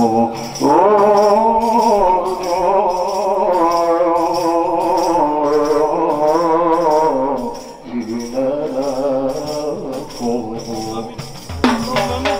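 A male voice sings a long, wavering, ornamented line of an Islamic devotional qasida over a steady jingle of tambourines. Sharp drum strikes come in near the end.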